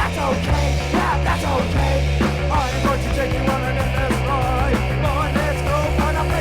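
A 1979 punk rock recording playing: a full rock band with a voice singing over it.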